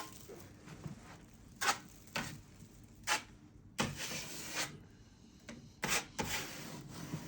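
Drywall knife scraping and spreading joint compound (drywall mud) over a mesh patch, being packed into a hole in the wall. It comes as a series of separate scrapes: short strokes and a couple of longer swipes.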